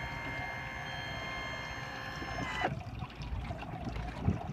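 Steady electric whine of the outboard's power tilt motor, cutting off suddenly a little over halfway in, followed by water trickling and dripping off the raised outboard with a few light knocks.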